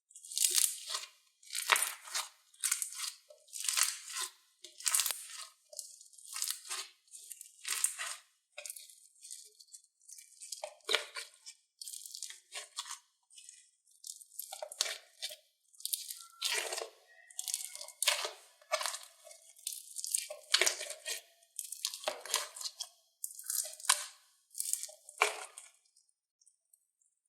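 Slime being squeezed and pulled by hand, giving a run of crackling, crunchy bursts about once a second. The bursts stop shortly before the end.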